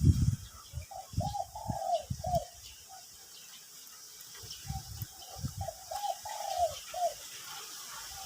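Spotted dove cooing: two phrases of several short coos, one about a second in and another about five seconds in, with dull low thumps under the first phrase.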